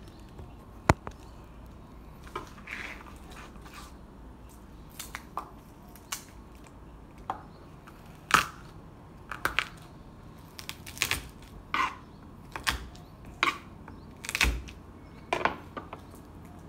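Garlic being crushed and peeled by hand on a wooden cutting board: irregular crackles of papery skin and sharp knocks against the board, coming more often and louder in the second half.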